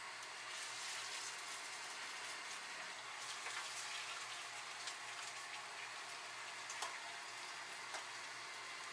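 Scallion pancake frying in hot oil: a steady sizzle with a few sharp crackles, the loudest a little before and a little after the two-thirds mark.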